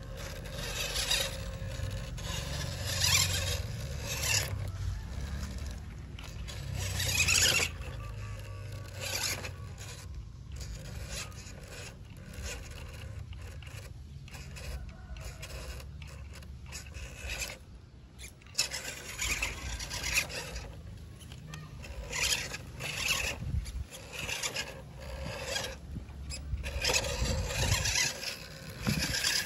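Scale RC Land Rover Defender D90 crawler's small electric motor and gearbox whirring in stop-start bursts as the throttle comes on and off, with its tyres scraping and churning through mud and loose dirt.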